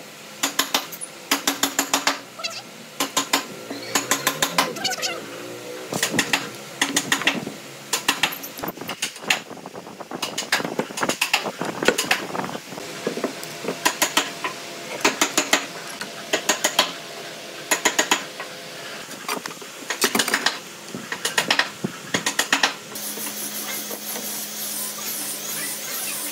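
Steel pipe clamps being fitted and tightened on a wooden frame: repeated bursts of quick metallic clicks as the clamp jaws slide and lock along the pipes. Near the end a steady machine hum with a high whine starts up.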